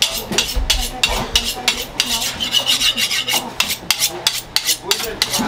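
Rhythmic rasping scrapes, about three a second, like a hard edge drawn repeatedly over metal.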